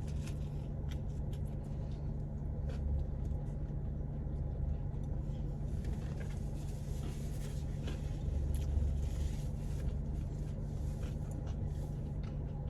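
Car engine idling, a steady low hum heard inside the cabin, with faint scattered clicks and crinkles of eating.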